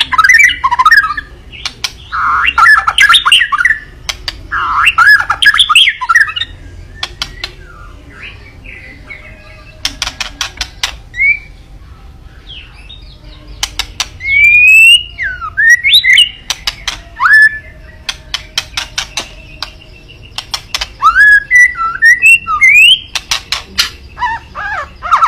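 White-rumped shama singing: loud warbling phrases with gliding whistled notes, broken up by quick runs of harsh clicking rattles, the 'kretekan' call. The bursts come in several spells with short pauses between them.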